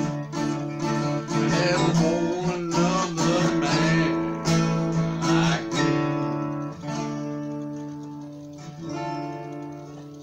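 Acoustic guitar being strummed and picked, with a man's voice singing along for a few seconds in the first half. The playing tapers off and gets quieter toward the end.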